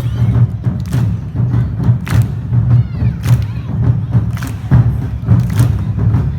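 Awa Odori festival band playing: large taiko drums beat a steady, driving rhythm, with sharp clicking strikes on top.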